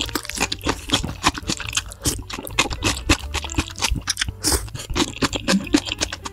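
Close-miked eating of spicy ramen noodles: a rapid run of wet slurps, lip smacks and chewing.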